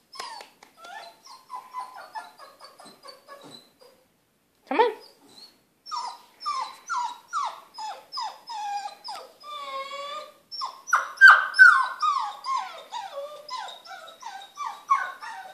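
Bernese Mountain Dog puppy crying: a long string of short, high whimpers that fall in pitch, about two a second, with one longer held whine about ten seconds in and louder cries just after.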